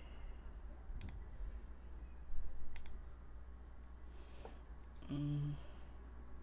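Computer mouse clicking: a single click about a second in and a quick double click near three seconds, over a steady low background hum. A short low hummed tone sounds about five seconds in.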